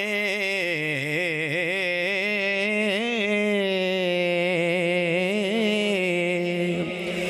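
A man's solo voice holding one long sung note in Punjabi devotional (naat) singing, with no accompaniment. The pitch wavers through quick ornamental turns at first, then mostly holds steady.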